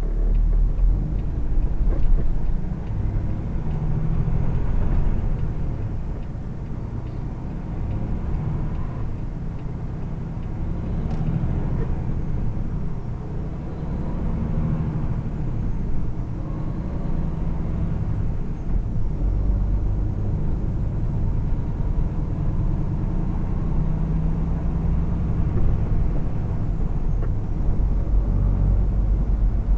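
Truck's engine and road noise heard inside the cab as it pulls away from a stop and accelerates to about 40 mph.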